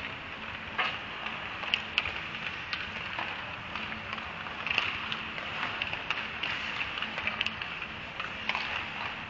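Ice hockey rink sound: a steady hiss of skate blades on the ice, with scattered sharp clacks of sticks and puck.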